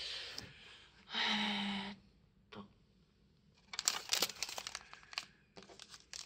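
Foil tea sachets crinkling and crackling as they are picked up and handled, in dense clusters during the second half. About a second in there is a brief, louder, steady hum-like sound.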